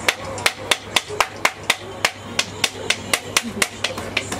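Sharp, even tapping at about four strikes a second, a utensil struck against the crepe griddle, over a steady low hum.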